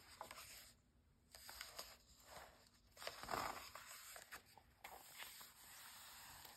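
Glossy magazine pages being turned and smoothed flat by hand: several soft papery swishes and rustles, the loudest about three seconds in, with a few light taps.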